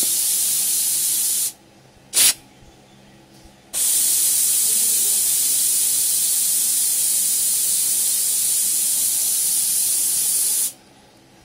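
Hissing jet of pressurized gas from a chrome nozzle, used to blow out a vape atomizer: one blast that stops a second and a half in, a brief puff, then a long steady blast of about seven seconds that cuts off near the end.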